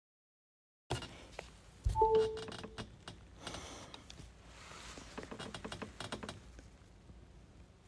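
Audio cutting in from silence with a click. About two seconds in there is a thump with a short low beep, then a run of quick clicks and taps, the handling and tapping noise of a phone's microphone as a live voice stream opens.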